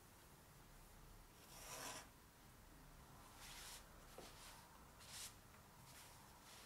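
Faint scratching of a Hunt 101 pointed steel dip-pen nib on paper: three short strokes, each about half a second long, spaced a second or two apart.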